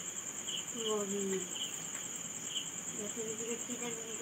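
Insects trilling steadily in a high, pulsing drone, with a shorter chirp repeating about once a second. A faint voice is heard briefly about a second in.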